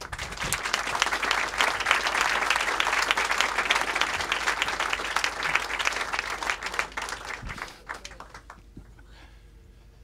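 Audience applauding at the end of a talk: dense clapping from the start that thins out and dies away about eight seconds in.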